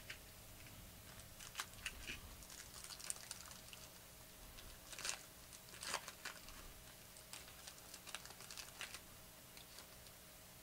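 Faint crinkling and tearing of a foil trading-card pack wrapper as it is opened, with scattered light clicks and rustles.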